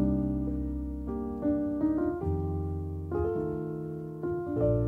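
Background piano music: chords struck and held, changing every second or so.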